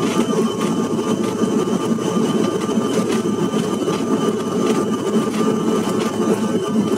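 Cabin noise inside a Bombardier CRJ1000 rolling along the runway: a steady low rumble from the wheels and airframe with the thin, constant whine of its rear-mounted General Electric CF34 turbofans.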